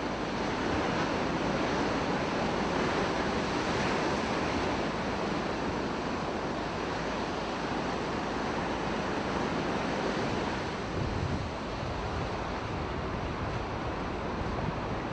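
Rough sea waves and strong wind, a steady rushing noise, with a low rumble of wind hitting the microphone about eleven seconds in.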